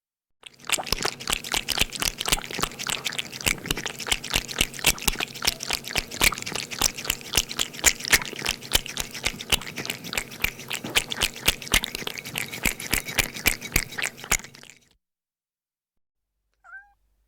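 A cat lapping up milk: a long run of rapid wet clicks from its tongue, about four or five a second, which stops after some fourteen seconds. Near the end comes a short cat mew that falls in pitch.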